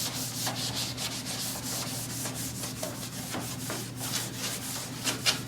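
Hand scrubbing with a scuff pad on a plastic car bumper: a continuous run of quick back-and-forth rasping strokes, scuffing the slick plastic so primer will grip. Two louder strokes come near the end.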